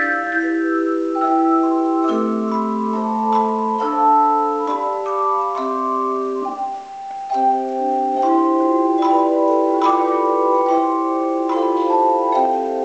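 Tone chime ensemble playing a hymn in chords: each struck chime rings on with a long, pure sustained tone, and the notes overlap as the harmony moves. The ringing briefly thins out about seven seconds in before the next phrase starts.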